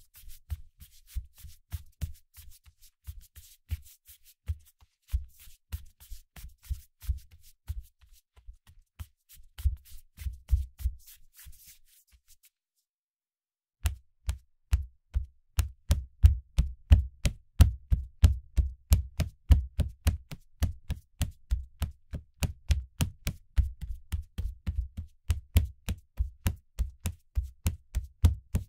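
Bare feet walking fast, each step a dull low thud at about three to four steps a second. The steps stop for about a second near the middle, then resume louder.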